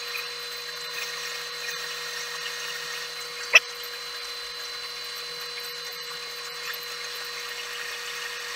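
Metal lathe running with a steady whine while its tool takes a cut across a spinning cast iron back plate. One sharp click about three and a half seconds in.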